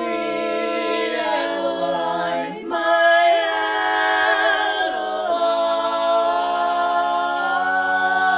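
Women's barbershop chorus singing a cappella in close four-part harmony: long held chords that change about three seconds in and again about five seconds in.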